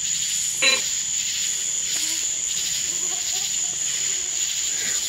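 Ghost-box (spirit box) output from a phone through a small portable speaker: a steady hiss of static with brief chopped voice fragments, one short falling burst about half a second in and faint wavering ones in the middle, which the investigators read as a spirit saying "Turn this off".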